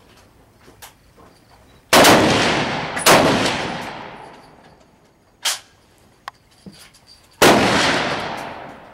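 Three loud rifle shots on a firing range: two about a second apart, then a third some four seconds later, each dying away in a long echo. Between them comes a shorter, fainter crack.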